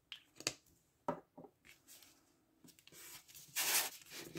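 A few light clicks from handling a plastic glue stick, then paper rustling as a folded paper envelope is pressed shut, loudest near the end.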